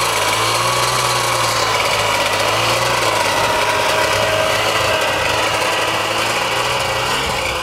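A small engine running steadily, its pitch wavering slightly up and down.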